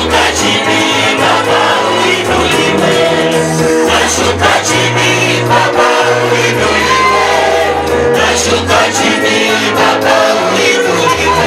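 Gospel praise and worship music: a group of singers over a band with a steady beat and bass.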